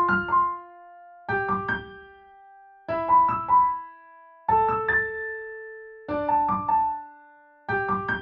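Keyboard music in a piano or electric-piano tone, from a headphone listening-test track. It plays short phrases of a few quick notes that end on a held, fading note, with a new phrase about every second and a half.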